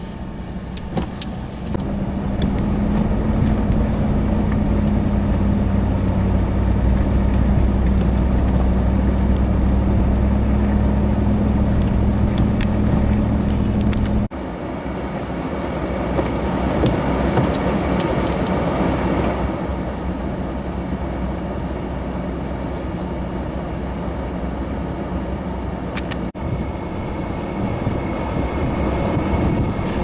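Blizzard wind blowing hard against the microphone, with a steady vehicle engine drone under it for the first half. About halfway through the drone stops suddenly, leaving gusting wind noise alone.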